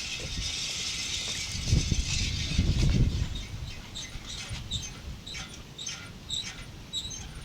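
Chirping from a large flock of birds overhead: many short, high calls overlapping through the second half. Gusts of wind buffet the microphone about two seconds in.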